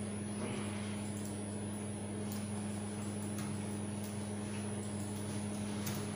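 Room tone: a steady low electrical hum, with a few faint clicks from the computer's keyboard and mouse.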